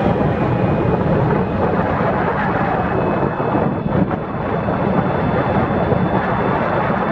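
Steady rush of wind on the microphone and road noise from an open scooter-type vehicle riding along a paved highway, with a faint high whine underneath.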